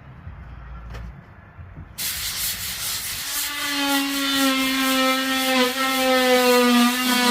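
Power sander on drywall: faint handling and two clicks, then the sander starts abruptly about two seconds in with a loud rasp, settling a second later into a steady motor hum over the grinding.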